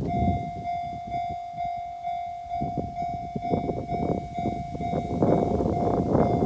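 Japanese level-crossing alarm ringing its electronic bell, a steady ding about twice a second. From about halfway through, the rumble and wheel clatter of a Kintetsu train passing over the crossing grows louder.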